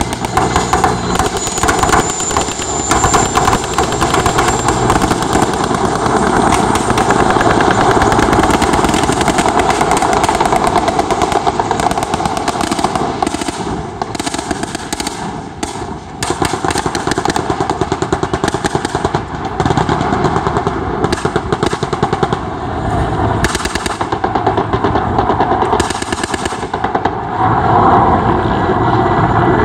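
Mil Mi-8-family transport helicopter flying past low, its main rotor beating in a fast, steady chop over the engine noise. The sound dips briefly about halfway through and swells again near the end.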